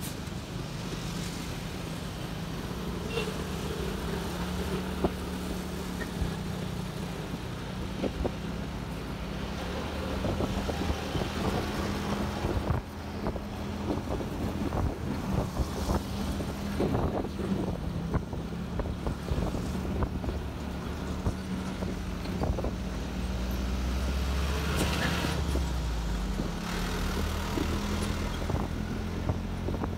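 Motorcycle engine running steadily while riding through traffic, with wind rumbling on the microphone that grows louder as the bike picks up speed in the second half.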